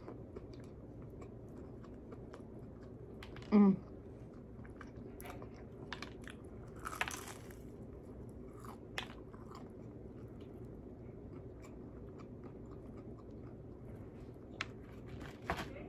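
Biting into and chewing crispy Popeyes fried chicken, with scattered crunches of the breading. A short, loud hum-like sound about three and a half seconds in.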